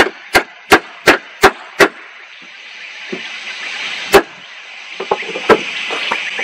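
Hammer blows on the log door frame: six quick, even strikes about three a second, then a pause, one harder blow, and a few lighter taps near the end.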